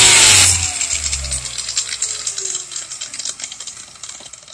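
Black & Decker angle grinder with a steel polishing wheel at full speed, switched off about half a second in and spinning down: its whine falls steadily in pitch over a dry, fading rattle of ticks. It runs again after its brush contact springs were stretched so the contacts touch.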